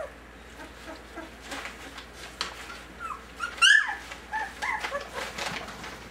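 Four-week-old puppies whimpering and squeaking as they play-fight, with one sharp, loud yelp a little past halfway, followed by a quick run of short squeaks.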